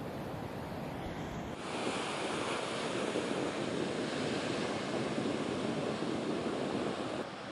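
Ocean surf breaking and washing, with wind rumbling on the microphone at first. About a second and a half in, it turns abruptly to a louder, steady wash of breaking waves and whitewater, which drops back near the end.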